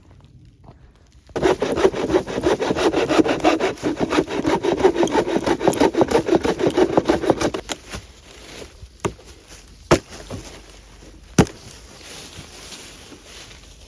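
Hand saw cutting through wood in quick, steady strokes for about six seconds, then stopping. A few sharp snaps or knocks follow.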